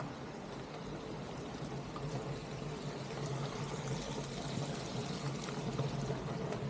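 Water pouring and splashing from a fountain spout into a pool, steady, getting a little louder partway through.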